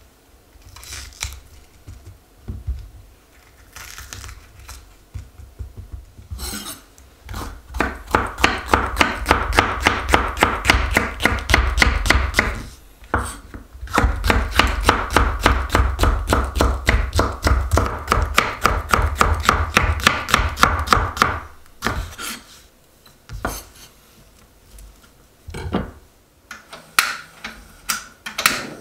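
Chef's knife slicing green peppers on a wooden cutting board: a long run of quick, even strokes, several a second, with a short pause partway. Scattered single taps and knocks come before and after the run.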